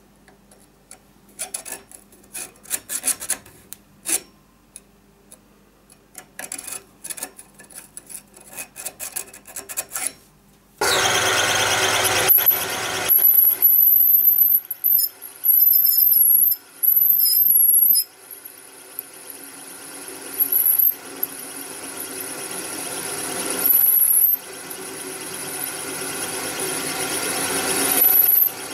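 Clicks and taps from handling a threaded metal part in a lathe chuck. About eleven seconds in the lathe starts and a turning tool cuts a groove in the spinning part, with a high squeal from the cut that comes and goes several times.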